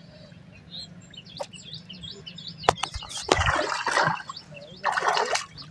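Small birds chirping. Nearly three seconds in come a few sharp clicks, then a hooked fish thrashes at the water surface, splashing loudly twice.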